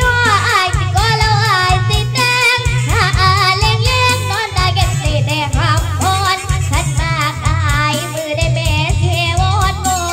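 Young girl singing a Thai song with heavy vibrato over a backing track with a steady, pulsing bass beat.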